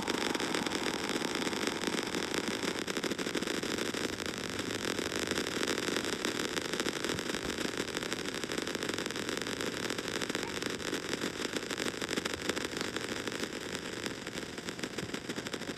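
Steady static-like hiss and noise with no clear tones: the soundtrack of a clip worn down into noise by hundreds of repeated video re-exports.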